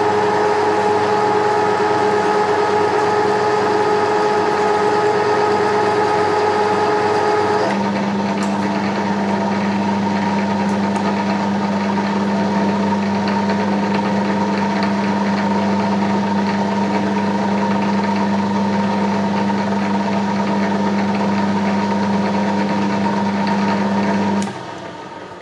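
Centre lathe running under power while cutting a thread, a steady mechanical whine. About eight seconds in its pitch changes abruptly to a lower steady hum, and about a second before the end the lathe is switched off and runs down.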